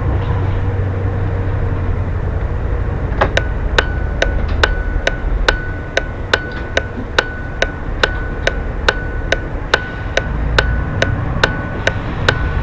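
Bus turn indicator ticking at about two clicks a second, starting about three seconds in, over the steady rumble of the bus's engine and tyres while it goes round a roundabout.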